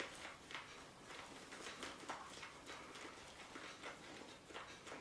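Shaving brush whipping thick shave cream lather in a shave scuttle, a faint rhythmic swishing and clicking at about two to three strokes a second.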